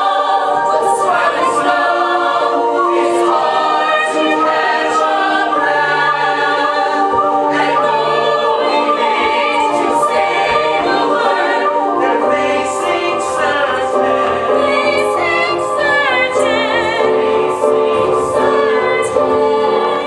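Chorus of many voices singing a sustained passage in harmony as part of a stage musical number.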